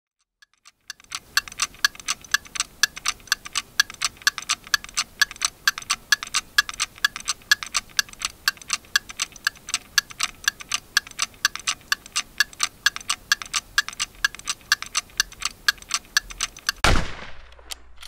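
A clock ticking rapidly and evenly. About a second before the end, a single loud gunshot cuts the ticking off, with a falling tail after it.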